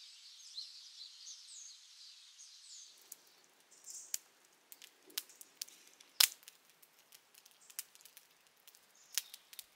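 Faint high chirping for about three seconds, then a small wood fire crackling with scattered sharp pops, the loudest a little past six seconds in.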